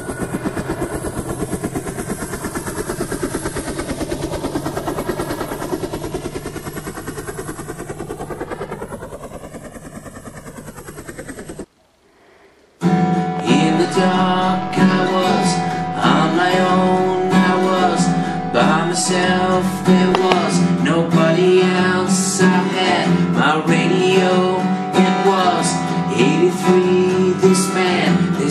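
A steady, rapidly pulsing sound runs for about twelve seconds and cuts off suddenly. After a brief gap, a strummed acoustic guitar, a Cole Clark, starts a song, and a man sings over it.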